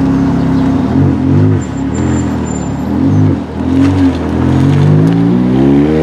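Ferrari's mid-mounted V8 idling, then blipped four times in quick succession, then pulling away with the revs rising steadily.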